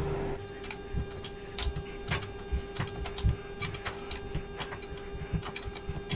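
Irregular light clicks and ticks of hand tools, a few a second, over a steady hum, while an oil temperature sensor is fitted in place of the oil drain plug on a Harley-Davidson Milwaukee-Eight.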